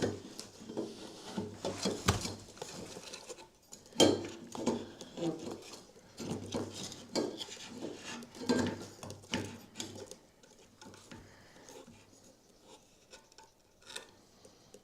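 Irregular clinks, taps and rubbing of small metal parts being handled and test-fitted: the header and canister muffler on a model airplane engine. The sounds grow sparser and quieter in the last few seconds.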